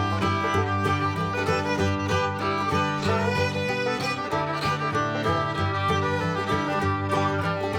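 Instrumental bluegrass-style music led by a fiddle over guitar and banjo, with a steady beat.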